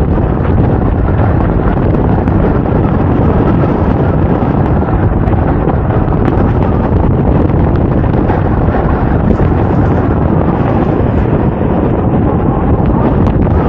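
Airflow of paraglider flight blowing over an action camera's microphone: loud, steady wind rumble throughout.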